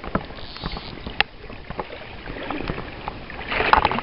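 Water splashing close by as a hooked brown trout thrashes at the surface on the line while being drawn in, with scattered small splashes and a bigger splash near the end.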